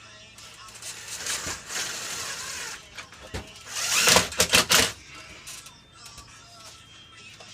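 Work noises from fitting a plywood security door: a scraping rustle, a knock about three seconds in, then a loud burst of rapid knocks and rattling a little after four seconds in.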